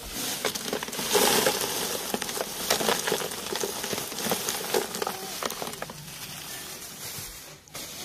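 Lumps of pink rock salt poured from a plastic bag onto ice in a tin box, giving a dense run of rattling, crackling clicks mixed with the bag's crinkle. It is loudest about a second in and fades out near the end. This is the top layer of salt over the ice for freezing kulfi.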